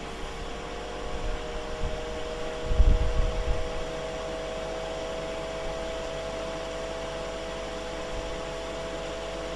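Ninja Foodi Max Health Grill & Air Fryer running on its grill setting: a steady fan hum with a faint, even whine. A brief low rumble about three seconds in.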